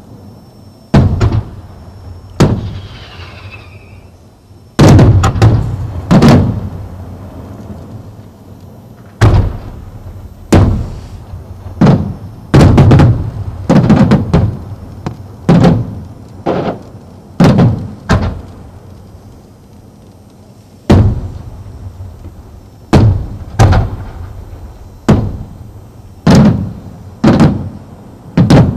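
Aerial firework shells bursting in a string of loud bangs, about one a second with a few quick clusters and a short pause near the middle, each bang dying away over about half a second.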